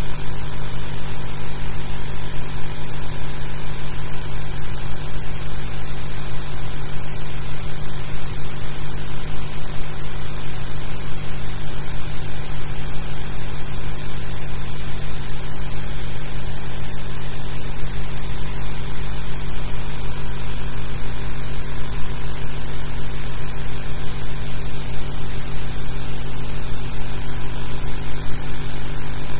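Steady hiss with a mains hum and several steady tones over it, unchanging throughout, with no distinct events.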